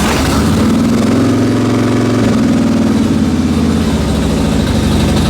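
Harley-Davidson Dyna's V-twin engine idling steadily and loud, freshly started on a new battery after failing to start.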